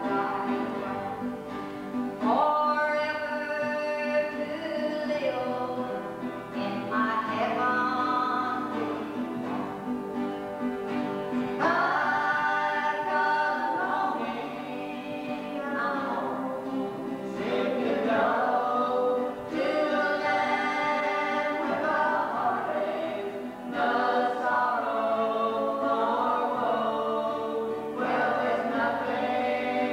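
A woman singing a gospel song, in phrases a few seconds long, with acoustic guitars accompanying.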